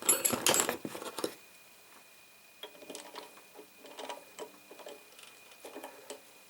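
Metal clicks and rattles from lathe parts being handled and adjusted by hand: a loud clatter in the first second or so, then light, irregular clicks.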